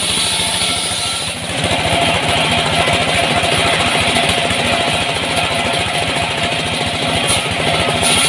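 Engine-driven wood saw running steadily. A little over a second in, the sound dips briefly, then a higher steady whine joins the engine.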